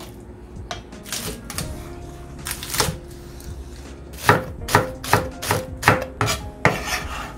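Kitchen knife chopping green onions on a cutting board: a few scattered cuts, then a steady run of about seven chops, roughly two and a half a second, in the second half.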